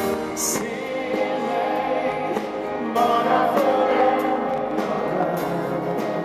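Male singer performing a schlager song live into a microphone, with instrumental accompaniment; the voice swells louder about three seconds in.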